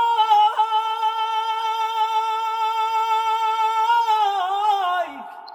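Unaccompanied male voice chanting a religious tasbih, holding one long sung note with a wavering turn near the end before it stops about five seconds in.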